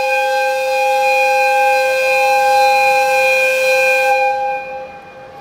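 EF55 electric locomotive's whistle sounding one long, steady two-tone blast that fades away about four and a half seconds in.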